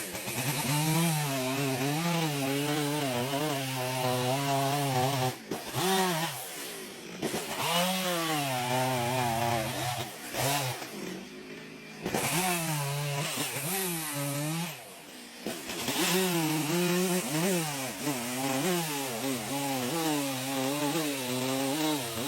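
Chainsaw engine running hard and cutting wood, its pitch wavering up and down with the load, with a few short dips in speed.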